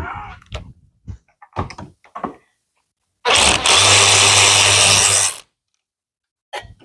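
A handheld power tool runs at a steady speed for about two seconds, after a few light knocks of work on the convertible top's fittings.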